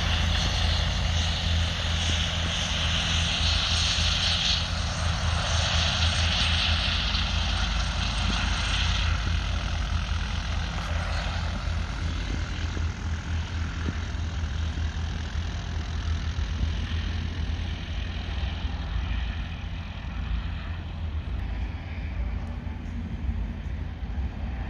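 Airbus H145 helicopter running close by, its twin turbine engines and rotors making a steady low beating hum with a high turbine whine for roughly the first nine seconds. The sound then eases off slightly.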